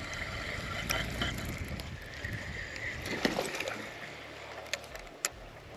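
Small fishing boat on the water: a steady low rumble and hiss with several light clicks and knocks, the sharpest near the end.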